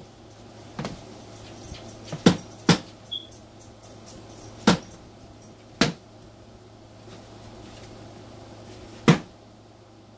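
Cardboard egg crates being knocked against a container to shake Dubia roaches off them: about six sharp knocks at uneven intervals, over a low steady hum.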